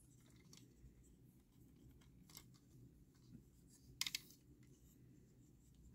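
Faint clicks of a plastic transforming robot toy's parts as they are flipped around by hand, with a quick run of clicks about four seconds in. Otherwise near silence.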